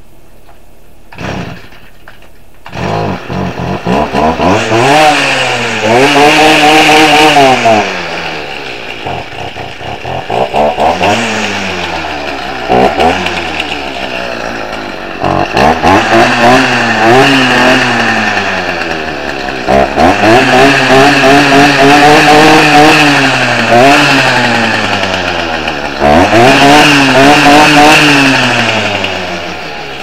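Stihl two-stroke string trimmer engine starting up about three seconds in, then revved up and held high several times, dropping back toward idle in between. It runs on undistilled, unfiltered pyrolysis oil made from styrofoam, mixed with two-stroke oil.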